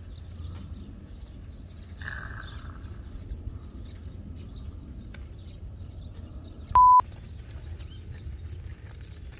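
Hand-picking of red-leaf lettuce heard as faint rustling and snapping of leaves over a steady low outdoor rumble. About seven seconds in, a short, loud, steady electronic beep sounds once.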